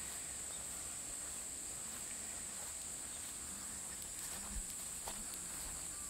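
Steady, high-pitched chorus of insects such as crickets, chirring without a break.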